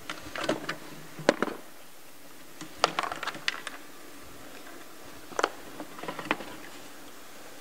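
Plastic clicks and knocks from a factory coolant overflow tank as it is pulled up and worked free of its mount. They come in a few short clusters over several seconds.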